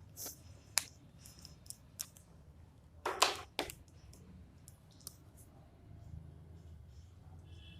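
Writing on a board: a few short sharp taps and clicks, with one louder scratchy stroke a little after three seconds in.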